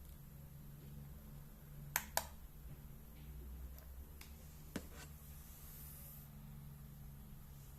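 Buttons on a digital projection alarm clock clicking as they are pressed: two sharp clicks close together about two seconds in, then a few fainter ones, over a low steady hum.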